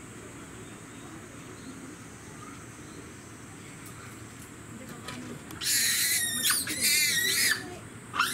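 Faint background murmur, then from about five and a half seconds in a run of loud, high-pitched screams from a Japanese macaque, each arching up and down in pitch, one of them wavering, with a short one more near the end.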